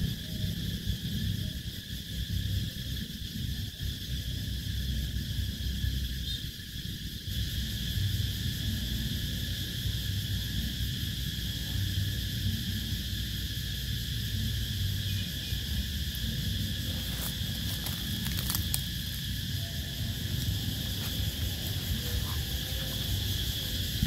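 Night cicadas singing in a steady chorus, several high-pitched tones held without a break, over a low rumble. A few faint clicks come about three-quarters of the way through.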